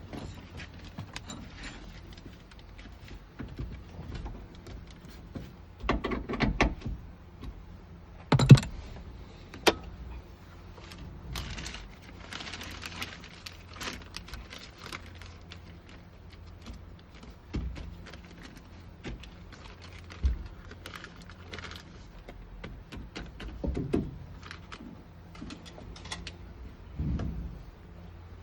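Scattered clicks, rattles and knocks of hand work on a car door's parts and fittings, with a sharp loud knock about eight and a half seconds in.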